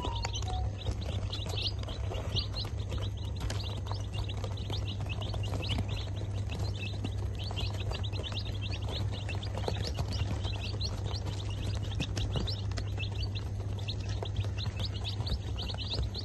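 A group of young domestic chicks peeping continuously, with many short high cheeps overlapping several times a second, over a steady low hum.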